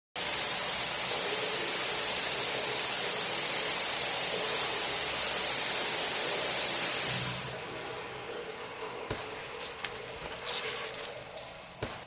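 Shower spray running steadily with a loud, even hiss, cut off about seven seconds in; then quieter dripping and small knocks.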